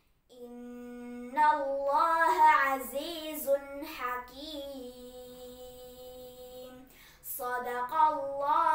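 A girl's voice reciting the Quran in melodic tartil chant: ornamented phrases that turn up and down in pitch, each settling on a long held note, with a short breath pause about seven seconds in.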